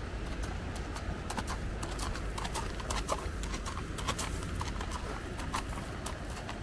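Horse's hooves walking on a gravel path: irregular clip-clop steps, a few a second, over a steady low rumble.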